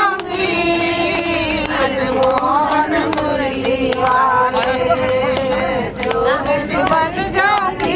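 A group of women singing a song together in Hindi, with long held notes.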